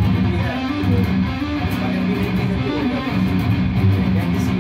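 Jackson electric guitar tuned down to B, played with a heavy metal tone: a continuous low riff with notes shifting in the bass, with no pauses.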